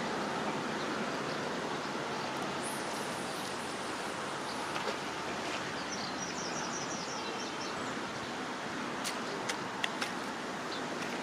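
Steady outdoor rushing noise with no voices. A bird gives a quick trill of repeated high notes about six seconds in, and a few sharp clicks come near the end.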